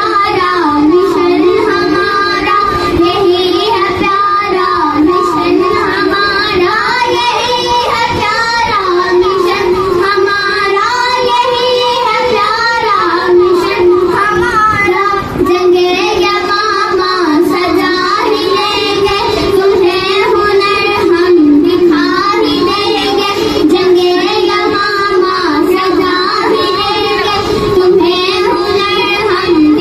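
Young girls singing a devotional naat, one into a handheld microphone and a second singing along, in a continuous melodic line.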